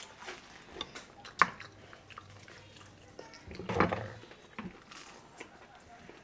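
Close-up mukbang eating sounds of a child biting and chewing a breaded fried chicken cutlet: soft mouth clicks, a sharp bite about a second and a half in, and a louder, longer bite near four seconds.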